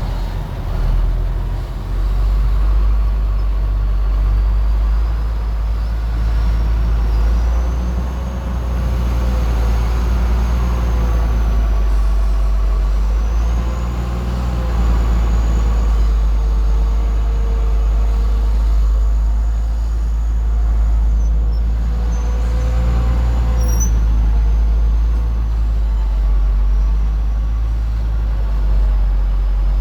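Bulldozer's diesel engine running under load with a deep, steady rumble. Thin whines drift slowly up and down in pitch above it.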